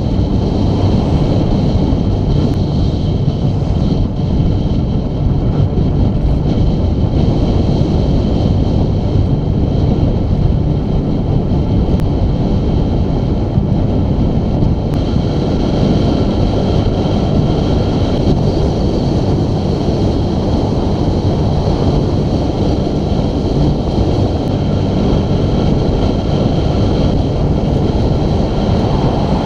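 Steady, loud wind rush buffeting the microphone of a camera on a road bike descending at speed.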